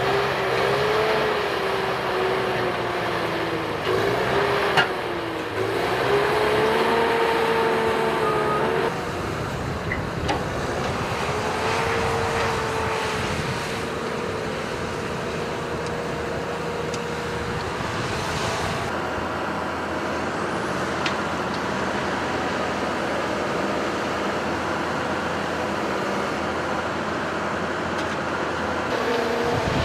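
Cat 320C hydraulic excavator working, its diesel engine and hydraulics running steadily with a whine that rises and falls in pitch as the boom and bucket move, then holds steadier. A few sharp knocks, about five and ten seconds in.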